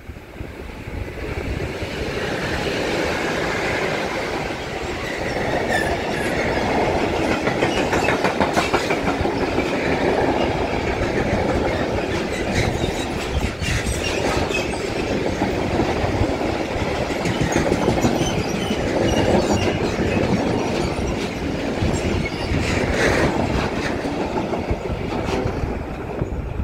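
Freight train passing at speed: a long rake of wagons rumbling and clattering along the rails, its wheels clicking over the rail joints. The sound builds up over the first two seconds and eases slightly near the end.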